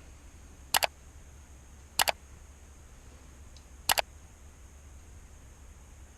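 Three sharp double clicks, each a quick pair, coming about one to two seconds apart over a steady low hum.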